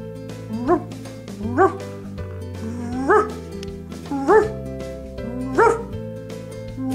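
Small white fluffy dog giving short yips, each rising quickly in pitch, about five of them spaced a second or so apart. Background music plays underneath.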